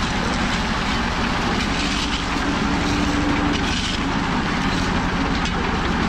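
Small engine-driven concrete mixer running steadily, its engine chugging fast and even while the drum tumbles gravel, sand and cement with a continuous gritty rattle.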